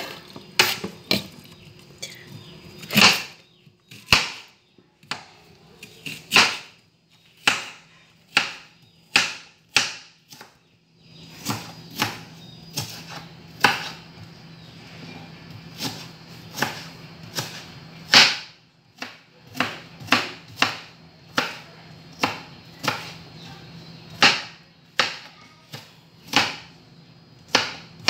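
Kitchen knife chopping an onion on a plastic cutting board: sharp knife-on-board knocks at an uneven pace of about one or two a second.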